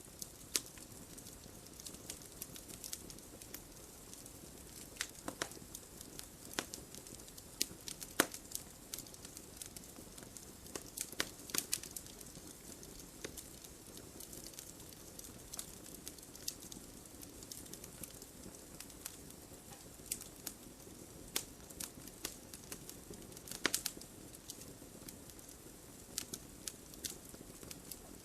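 Wood fire crackling: irregular sharp pops and snaps over a soft steady hiss, with a few louder pops scattered through.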